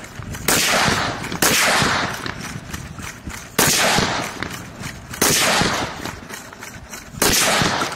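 About five single shots at uneven intervals from the rifle mounted on the Kestrel Defense Blood-Wing robot dog. Each shot is sharp and is followed by a long echoing decay.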